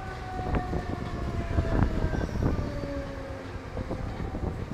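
Running noise of a Mumbai suburban EMU heard from aboard at speed: wheels rumbling and clicking over rail joints, with a few long, slightly falling whining tones.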